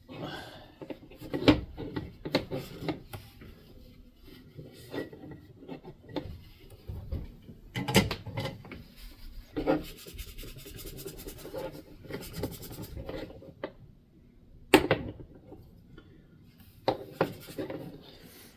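Irregular rubbing and scraping on a circuit board as its solder pads are cleaned up, broken by a few sharp knocks. About ten seconds in comes a run of quick, fine scratching strokes lasting a few seconds.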